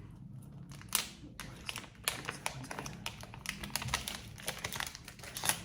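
A Pokémon card mystery pack being handled and opened by hand: irregular light clicks and crackles of plastic and foil packaging.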